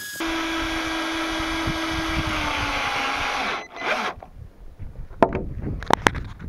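Power drill driving a long screw through a timber collar tie into a rafter: the motor runs steadily for about three and a half seconds, dips slightly in pitch near the end as the screw draws the timbers together, then stops. A few sharp knocks follow.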